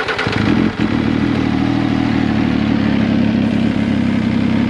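MV Agusta F3 three-cylinder motorcycle engine on its electric starter: it catches within the first half second and settles into a steady idle. This is its first start after the ECU was re-flashed with the base map.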